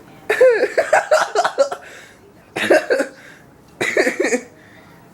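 A person laughing hard in cough-like bursts: a long run of quick, breathy laughs, then two shorter bursts.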